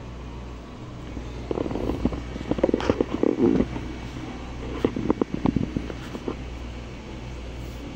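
Steady low hum of a 3D printer's fans while it heats up, broken twice by bouts of knocking and rustling handling noise, about a second and a half in and again about five seconds in.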